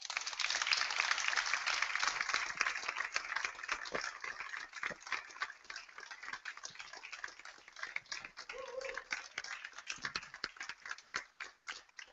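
Audience applauding: a dense round of clapping that thins out into scattered single claps near the end.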